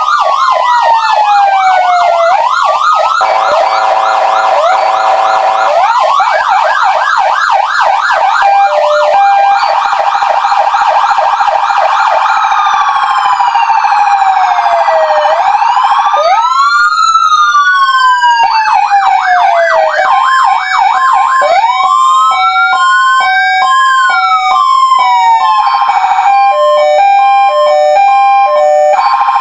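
Electronic emergency-vehicle sirens, a Star Signal and a Federal Signal PA300, sounding loudly through siren speakers and switching quickly between tones. There are fast yelp sweeps, a steady lower horn tone about three seconds in, slow wail rises and falls, and a stepped high-low two-tone in the second half.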